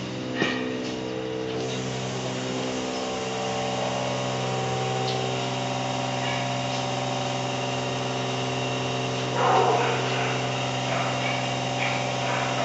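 Steady machine hum at one constant pitch, with a sharp click just after the start and a short, louder noise about nine and a half seconds in.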